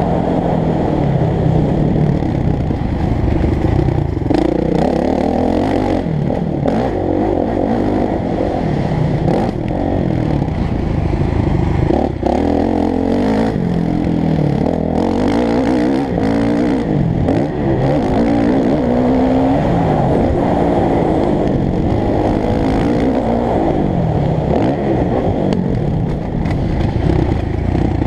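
Motocross bike engine running hard around a dirt track, its pitch repeatedly rising under throttle and dropping back through shifts and off-throttle moments, with a clattery edge.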